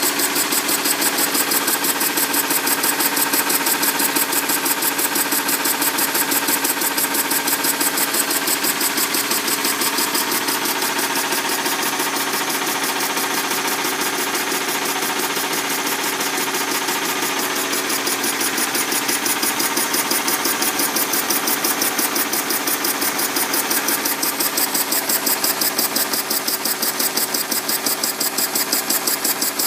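Homemade single-cylinder steam engine with a large flywheel running steadily, its exhaust and moving parts beating at a fast, even rate.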